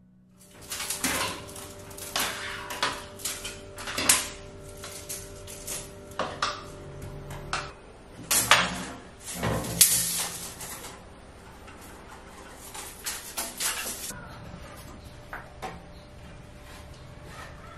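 Clinks, clatter and knocks of shelf-rail hardware being handled and set against a wall. They come thick for most of the stretch and thin out near the end, over a faint steady hum.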